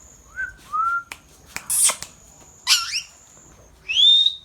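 Ringneck parrot whistling and calling: two short rising whistles, then a loud harsh screech, a falling squawk, and a rising whistle near the end.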